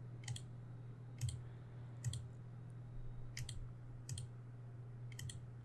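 Computer mouse button clicks, single clicks roughly once a second with a quick double click near the end.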